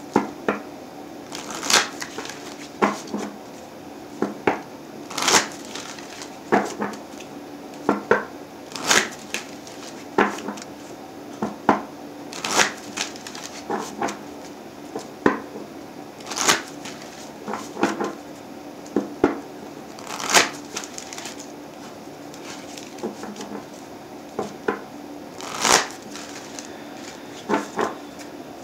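A tarot deck being shuffled by hand: a string of short, sharp card snaps and flutters, uneven in spacing, about one every second.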